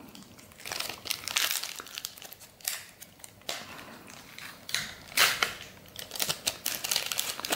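Foil wrapper of a 1991 Upper Deck football card pack crinkling in the hands in irregular crackles as it is picked up and handled.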